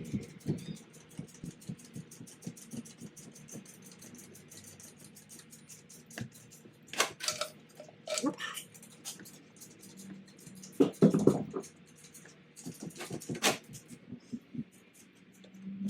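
Hand tools working on an engine: a run of fast, light ticking, then several sharper clicks and knocks, the loudest about eleven seconds in, over a faint steady hum.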